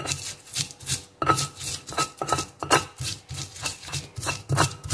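Stone pestle (ulekan) pounding and crushing raw shallots and garlic with salt in a stone mortar (cobek): repeated dull knocks of stone on stone through the vegetables, about three a second and unevenly spaced.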